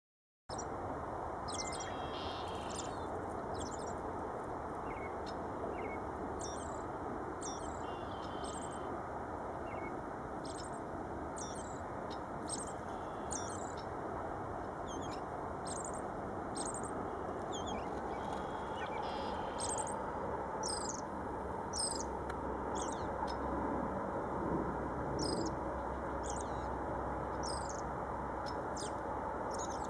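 American robin singing: short, high phrases repeated every second or two, over a steady low background noise.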